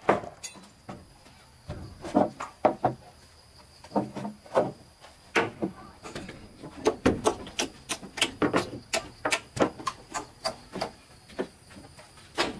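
Irregular knocking and clattering: many sharp knocks in quick, uneven succession, some in tight clusters.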